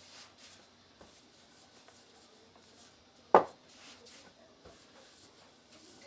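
Gloved hands pressing and smoothing a disc of buckwheat soba dough on a floured wooden board, a faint rubbing, with one sharp wooden knock a little over three seconds in.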